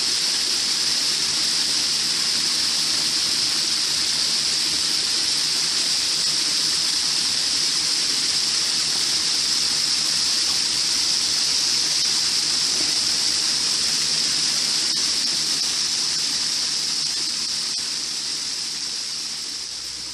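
A waterfall's steady rush of falling water, fading out near the end.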